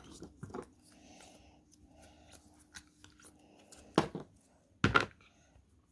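Soft handling sounds of Play-Doh and plastic toy tools being worked on a table, then two sharp knocks nearly a second apart near the end.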